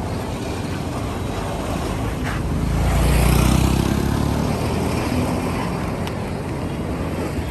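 A motor vehicle's engine passes close by over steady street noise, its low rumble swelling to a peak about three seconds in and then fading.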